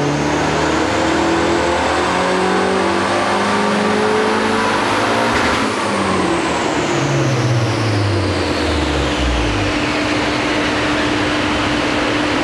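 A 2005 Mazda 6 MPS's 2.3-litre turbocharged four-cylinder engine is doing a full-throttle power run on a chassis dynamometer, driving the rollers. The pitch climbs steadily for about five and a half seconds, then falls away over the next few seconds as the run ends, and a steady hum remains.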